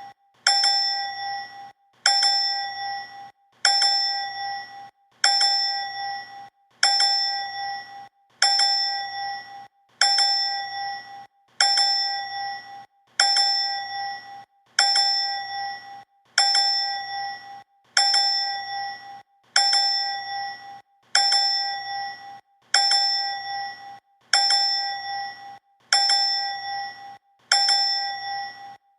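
A bright bell "ding" sound effect repeated over and over, about once every one and a half seconds. Each ding strikes sharply and rings out with a clear tone and higher overtones, fading away before the next.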